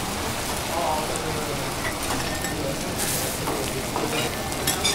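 Food sizzling steadily on a hot teppanyaki iron griddle, with a few sharp clicks near the end and background voices.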